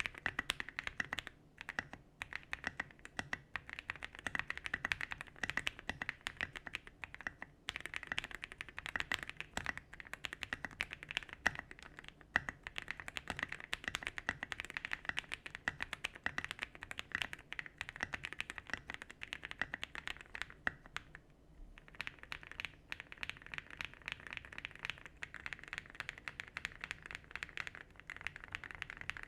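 Typing on a MonsGeek M1 mechanical keyboard with Smoothie switches and SA-profile keycaps: rapid, continuous keystrokes, with a brief pause after about twenty seconds.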